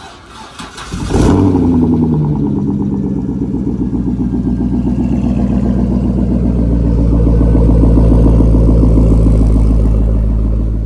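Corvette V8 engine starting about a second in, then running steadily and loudly.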